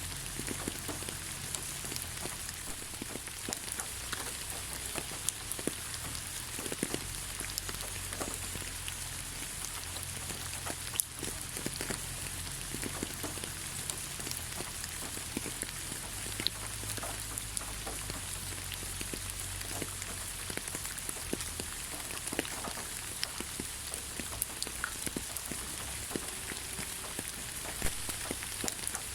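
Steady rain falling on the ground: an even hiss sprinkled with the sharp ticks of single drops, over a faint low rumble.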